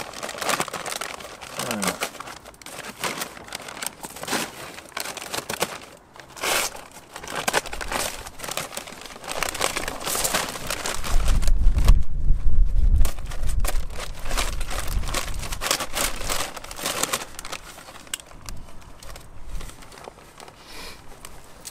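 Stiff brown paper sack crinkling and rustling in many short crackles as it is handled, lifted and pulled open. A low rumble comes in for a few seconds about halfway through.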